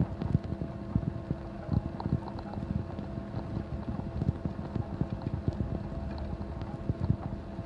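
Outdoor launch-pad ambience: wind buffeting the microphone as a steady low rumble with scattered crackles and a faint steady hum.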